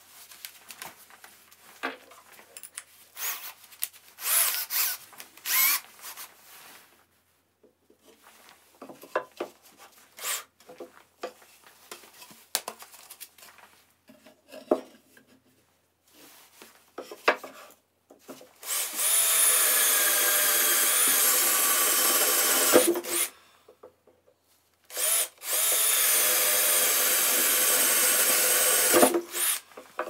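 Cordless drill running twice, about four seconds each, boring holes through a wooden board. Before that, light knocks and clicks of wooden boards being handled.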